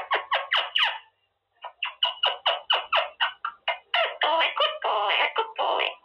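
Quaker parrot (monk parakeet) chattering in a rapid series of short, squawky, downward-sweeping notes, about five a second. There is a brief pause about a second in, and the calls turn harsher and more continuous near the end.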